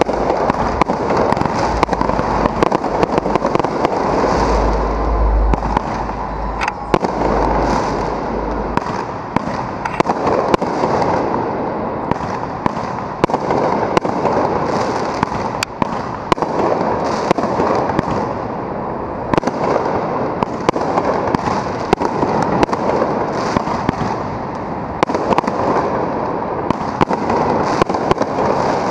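Aerial fireworks bursting in rapid, continuous succession: a dense crackling and popping with many sharp bangs, unbroken throughout.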